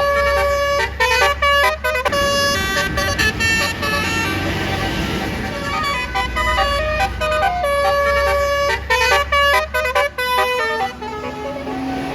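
Tour bus's Basuri telolet horn playing a melody of stepped notes, some sounded as chords, over the low rumble of the bus. The tune stops about eleven seconds in.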